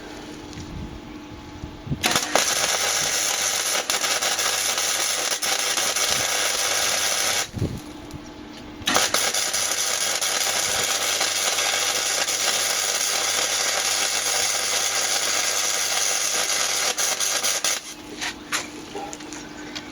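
Electric arc welding: two long runs of steady crackling arc with a low hum underneath, about five seconds then about nine seconds, broken by a short pause a little before the middle.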